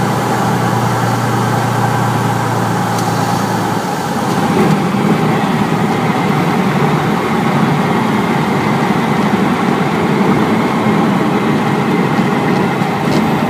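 Cessna 172B's six-cylinder Continental O-300 engine running at low power during the landing roll, heard from inside the cockpit. The engine note shifts about four seconds in and becomes slightly louder.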